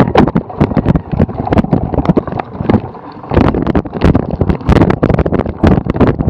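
Cyclocross bike ridden over bumpy grass: dense, irregular knocks and rattles as the bike and camera jolt over the rough ground, with wind rushing over the microphone.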